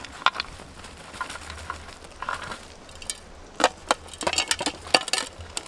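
Metal shovel scraping and crunching through ash, embers and stones in a fire pit, with a run of sharp clinks and knocks that bunch together in the second half.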